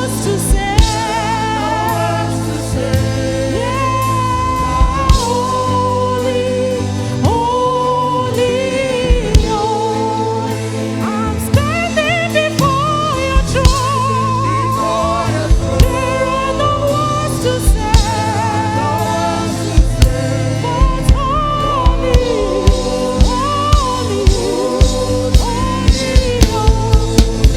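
Gospel worship music: a singer's voice with wavering vibrato lines over a live band with held bass notes and a drum kit keeping a steady beat. The drum hits come closer together near the end.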